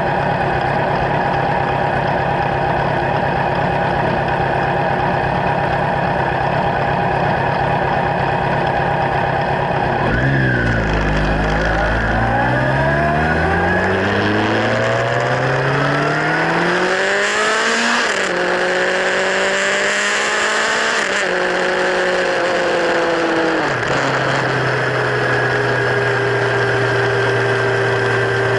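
Kawasaki Z1000 inline-four engine breathing through LeoVince slip-on exhausts. It idles steadily, then about ten seconds in is revved up slowly for several seconds, held high briefly, and allowed to drop back to a steady idle near the end.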